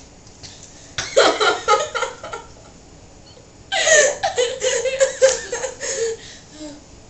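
Girls laughing in two fits of quick, pulsing laughter, the first about a second in and a longer one from about four seconds.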